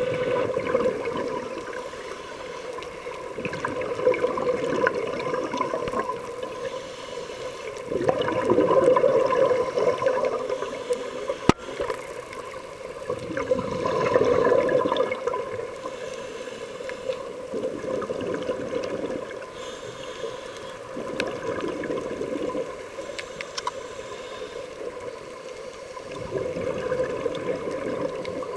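Scuba regulator breathing heard underwater: rushing, gurgling bursts of exhaled bubbles that swell every few seconds over a steady hum, with one sharp click partway through.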